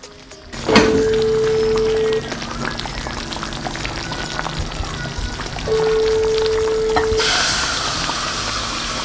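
Background music with two long held notes, over the crackling sizzle of banga soup boiling in a clay pot. The hissing sizzle grows louder about seven seconds in.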